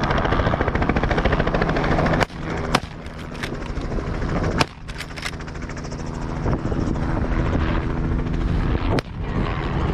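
A helicopter flies low nearby with a steady rotor beat and engine drone while mustering pigs toward the shooters. Several sharp cracks cut through it between about two and five seconds in, with one more near the end.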